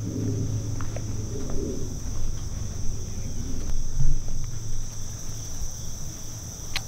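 Steady, high-pitched chirring of crickets, with a faint low hum beneath and a few small ticks.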